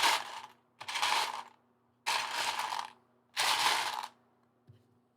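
Loose Lego pieces rattling as a hand rummages through them in search of a part, in four short bursts about a second apart.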